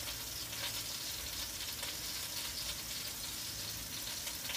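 Kitchen tap running steadily, an even hiss of water with faint splashing ticks.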